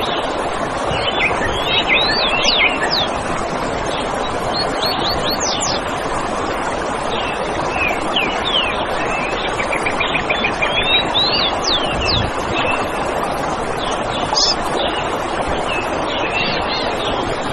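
Forest birds chirping and calling in short, repeated notes, with one quick trill about eight seconds in, over a steady rushing hiss.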